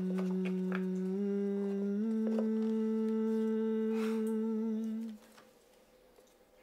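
A voice humming three long notes, each a small step higher than the last. The last note is held with a slight waver and fades out about five seconds in.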